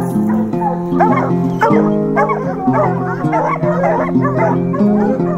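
A pack of bear hounds barking and baying in many short overlapping calls, the sound of dogs holding a bear up a tree. Background music with sustained chords plays under them.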